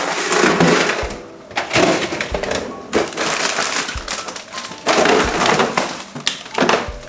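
Plastic packaging crinkling and crackling as it is handled, in five or six loud bursts, over soft background music.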